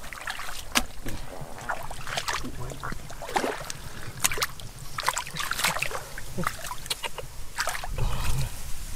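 Hands splashing and sloshing through shallow muddy water, in an uneven string of short, sharp wet splashes.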